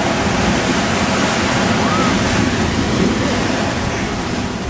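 Heavy ocean surf breaking and rushing on the shore, a steady loud wash of water noise that eases slightly near the end.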